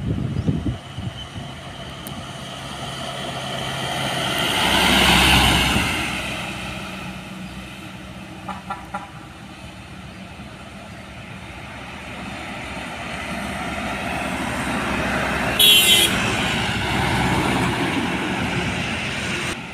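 Heavy diesel trucks passing close on a highway: one truck's engine and tyres swell to a peak about five seconds in and fade away, then another approaches and passes near the end. A short horn blast sounds about sixteen seconds in.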